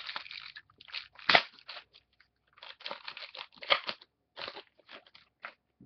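Football trading-card pack wrapper crinkling as it is opened and the cards are handled: irregular crackly rustles in short clusters with brief gaps.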